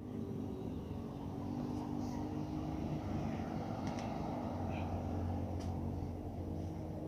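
A motor vehicle's engine running steadily, a low hum that grows a little stronger about halfway through.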